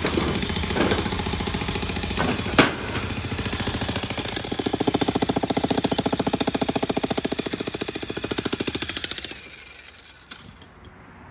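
Bosch Brute electric breaker hammer pounding concrete with rapid, steady blows, with one sharp crack about two and a half seconds in; the hammering stops about nine seconds in.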